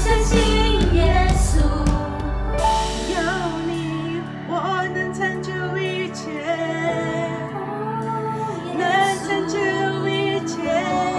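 Worship song: a singer's voice carrying a slow melody over sustained instrumental backing. The deep bass fades out about two seconds in, leaving a softer accompaniment.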